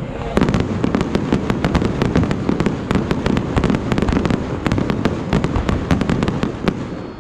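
Aerial fireworks going off in a dense barrage: a rapid run of sharp bangs and cracks, several a second, thinning out near the end.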